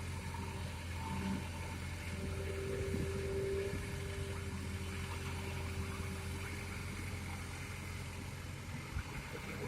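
Excavator diesel engine running steadily, with a higher whining tone from about two seconds in that fades away past the middle.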